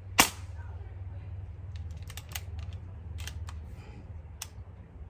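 An air rifle fires a single shot, a sharp crack about a quarter of a second in. Over the next few seconds comes a run of light metallic clicks as the action is cycled to load the next pellet.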